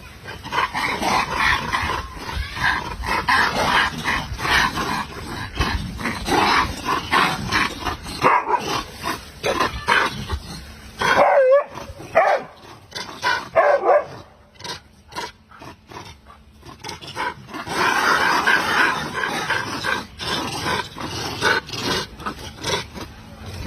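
Dogs barking and yelping in an agitated scuffle, with a few longer, drawn-out yelps midway.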